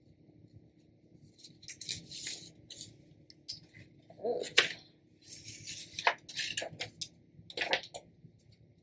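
Paper rustling and crinkling as sublimation paper and tape are peeled off freshly pressed wooden wine-caddy pieces, in irregular scratchy spells, with a few sharp clicks of the wood pieces being handled, the loudest about halfway through.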